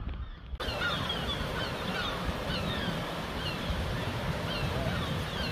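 Birds calling in many short, falling calls, several each second, over a steady low rumble; the sound comes in abruptly about half a second in.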